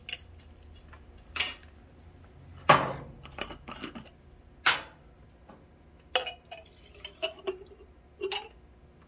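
Small containers being handled and set down on a bench: a series of short, sharp clinks and knocks spaced a second or two apart, while gasoline is measured into them.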